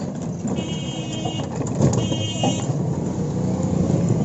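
Steady low road noise of an electric rickshaw ride through a street, with two high-pitched electronic horn beeps, the first about half a second in and the second about two seconds in, each lasting under a second.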